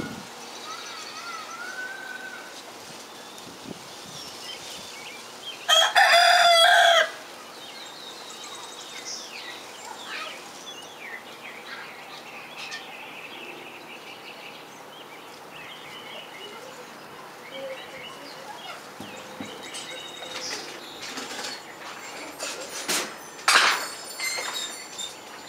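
A juvenile rooster crows once, a call of a little over a second about six seconds in, among the soft clucks and chirps of the chicken flock. Near the end there are a couple of sudden, louder sounds.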